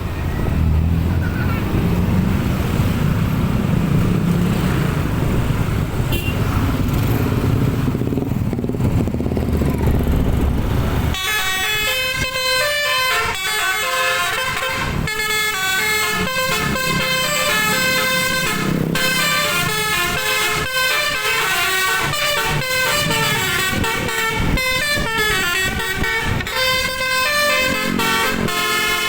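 A low engine rumble for about the first eleven seconds, then a bus's telolet multi-tone musical air horn suddenly cuts in and plays a loud, fast run of stepping notes, tune after tune, through to the end.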